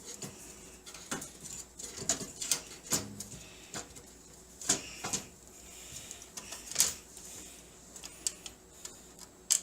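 Screwdriver working a motherboard screw in a metal PC case: irregular small metallic clicks and scrapes, a dozen or so over several seconds. The motherboard standoff is turning along with the screw, which the owner takes for why the screw won't come out.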